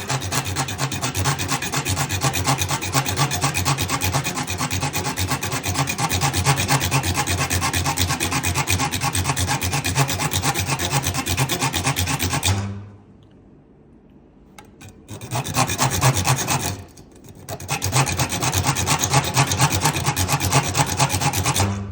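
Small square hand file rasping back and forth in rapid, even strokes, cutting a key slot into the edge of a drilled hole in a dash panel. The filing stops for about two seconds just past halfway, comes back for a short run of strokes, pauses briefly, then carries on to the end.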